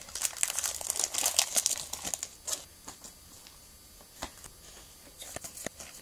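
Foil Pokémon booster pack wrapper crinkling and tearing as it is opened by hand. The crinkling is dense for about the first two seconds, then gives way to a few scattered clicks and snaps.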